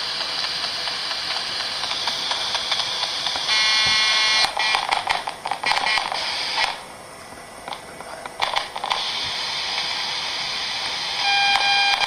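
Radio giving out loud static hiss with crackles and clicks. The static is broken by a buzzing beep tone about three and a half seconds in and again near the end, which is questioned as possible Morse code.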